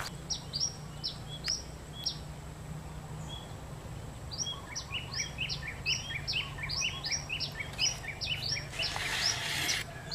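Birds chirping in rapid series of short, downward-sweeping notes at two pitches, a few early on and then many from about the middle onward, over a steady low background hum. A short burst of hiss-like noise comes near the end.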